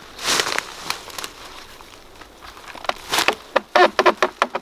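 Irregular knocks, clicks and crackling. There is a burst of rustling about a quarter second in, then a quick run of sharp clicks and knocks from about three seconds in.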